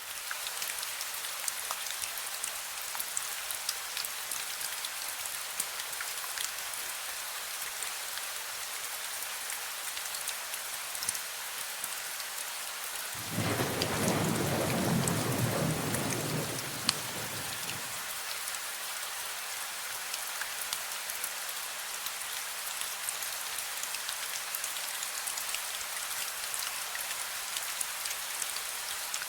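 Steady rain falling with a dense patter of drops. Midway a roll of thunder rumbles for about five seconds, then fades back into the rain.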